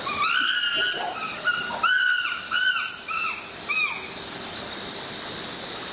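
A chimpanzee giving a quick series of short, high, arching calls, about eight of them, that stop about four seconds in, over a steady high hiss.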